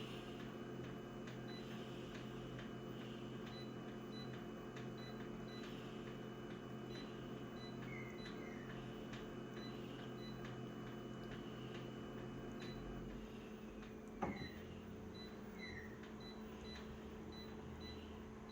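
Steady hum of a small electric machine running, with faint regular ticks. Its tone drops away about 13 seconds in, and a single click follows about a second later.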